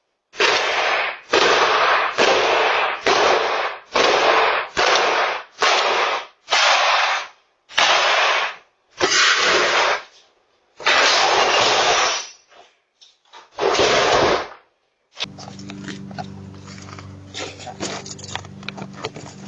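A series of about a dozen loud, harsh bursts of noise, each under a second long, coming roughly once a second, with a longer one near the middle. They give way about three-quarters of the way through to a quieter low steady hum with faint clicks.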